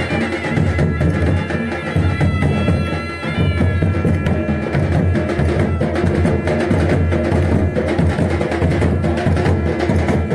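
Dhol drums beating a fast, dense rhythm, with a sanai (shehnai) playing a sustained melody over them; the sanai is clearest in the first few seconds and fades under the drums after that.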